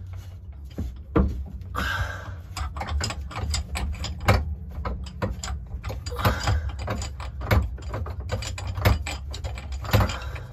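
Rapid, irregular metallic clicking and rattling as a long, rusty threaded bowsprit through-bolt is unthreaded and worked down out of its hole, with a few sharper knocks among the clicks.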